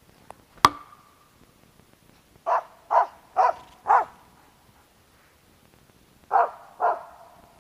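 Hunting dog barking at a squirrel in the trees: four short barks about half a second apart, then a pause and two more near the end. About half a second in, a single sharp knock, louder than the barks.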